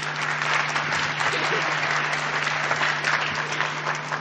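Audience applauding in a hall: many hands clapping at an even level.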